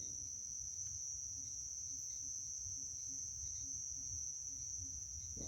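Crickets trilling: one steady, unbroken high-pitched tone, with a low rumble underneath.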